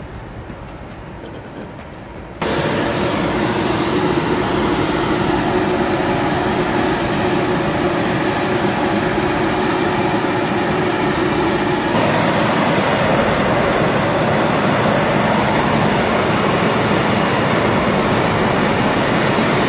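Low background ambience for about two seconds, then abruptly the loud, steady noise of jet aircraft on a flight line, with a steady droning whine in it. About twelve seconds in the sound shifts and turns hissier.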